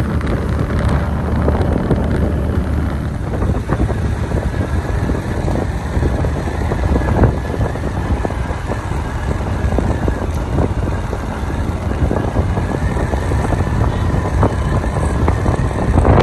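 Motorbike engine running on the move, with wind rushing and buffeting over the microphone.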